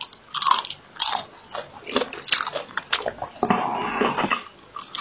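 Crunchy eating sounds: a run of short, crisp bites and chewing, with a longer rustling stretch a little after three seconds in.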